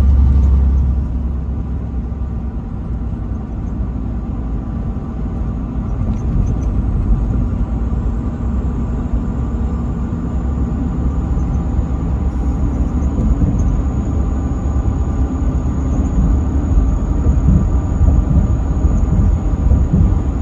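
Truck driving at highway speed: a steady low rumble of engine and road noise.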